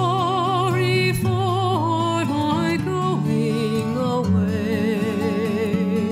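Background music: a melody with wide vibrato over held low notes.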